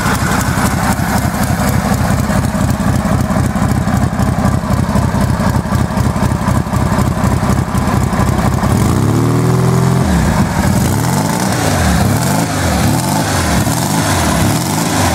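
Zündapp K800 boxer-four motorcycle engine idling with an even beat. About nine seconds in it is revved up, then the throttle is blipped repeatedly, about once a second.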